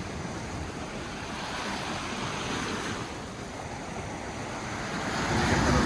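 Sea surf washing in with wind buffeting the microphone. A wave breaks louder near the end.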